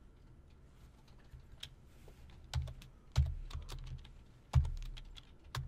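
A few scattered clicks and taps on a computer keyboard and mouse, the loudest about two and a half, three and four and a half seconds in, each with a dull low thump.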